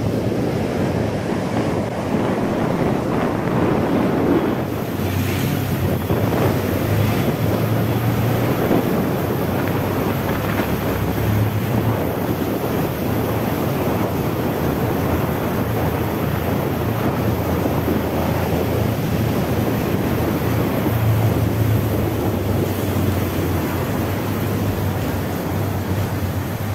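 Wind rushing over the microphone of a moving motorcycle, with the engine's steady low hum underneath.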